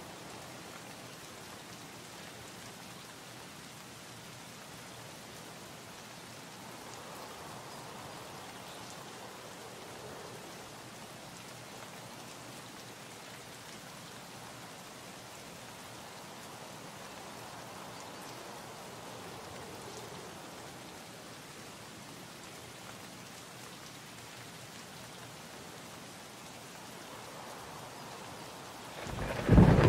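Steady rain ambience, an even hiss with faint slow swells. A loud rumble of thunder breaks in near the end.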